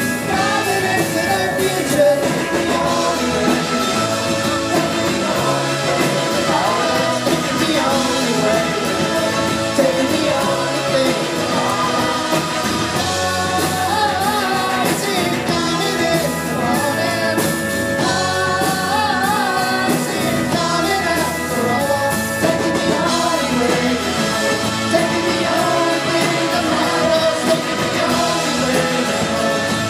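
Live indie rock band playing loud and steady, with a woman singing lead over drums and guitar, recorded from the crowd.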